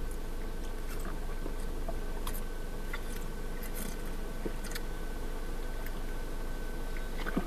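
Two people chugging milk from plastic bottles: a few faint gulps and clicks spread out over a steady low hum in a car cabin.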